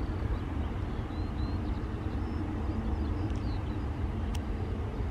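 Boeing 737-800 jet engines rumbling steadily as the airliner rolls along the runway after landing, with wind on the microphone and a few faint bird chirps.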